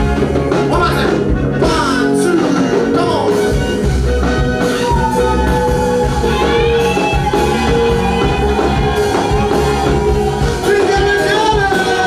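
An upbeat Swahili hymn sung with band accompaniment: voices carrying the melody over a steady drum beat and instruments.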